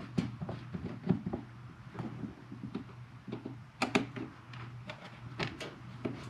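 Irregular light clicks and knocks of hands and a screwdriver working a plastic smoke-detector base plate against the ceiling, the sharpest pair of clicks about four seconds in, over a faint steady hum.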